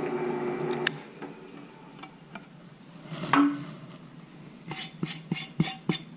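Drill press motor humming and winding down after drilling through the aluminium hydrofoil plate, then scattered clicks and knocks as the metal plate is shifted on the drill press table, ending in a quick run of light metallic knocks.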